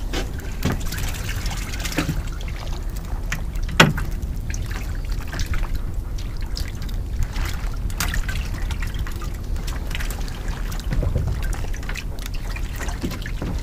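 Water trickling and lapping against the hull of a small boat, with scattered clicks and knocks from handling the rod and tackle. One sharper knock comes about four seconds in.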